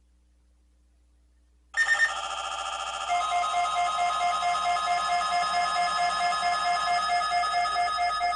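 Emergency Alert System weekly test signal: after a near-silent start, loud electronic alert tones come in suddenly about two seconds in, several steady pitches pulsing rapidly together.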